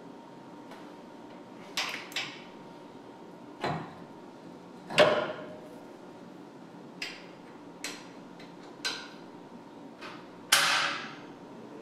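A series of about eight sharp knocks and clanks at uneven intervals, from tools and parts being handled while reassembling a Fadal VMC 15 machining centre's Z-axis. The loudest comes about five seconds in, and one near the end rings on as it dies away.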